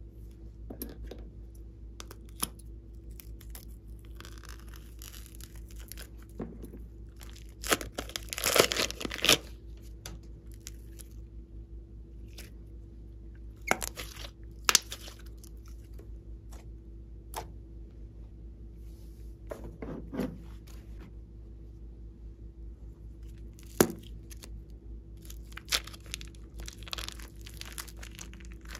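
Hands squeezing, kneading and stretching sticky slime and soft clay, giving scattered wet crackles and pops. The loudest run of crackles comes about eight to nine seconds in, all over a steady low background hum.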